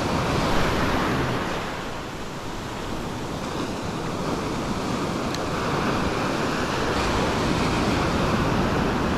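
Ocean surf breaking and washing up a sandy beach at close range, a steady rush of foaming water that swells and eases gently, with some wind on the microphone.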